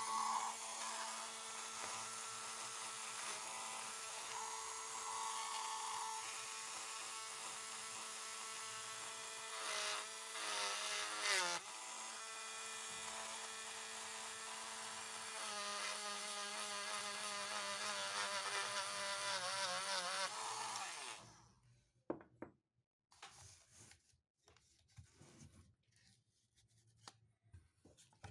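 Small handheld rotary tool running a felt polishing wheel on the stainless steel parts of a stethoscope: a steady motor whine whose pitch wavers in places, dipping about ten seconds in. The motor cuts off about 21 seconds in, leaving only faint handling sounds.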